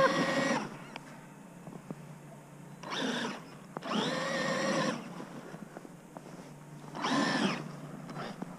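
Traxxas Maxx RC monster truck's brushless electric motor whining in short throttle bursts, about four times, each rising in pitch as it spins up and then holding before it lets off; the longest lasts about a second.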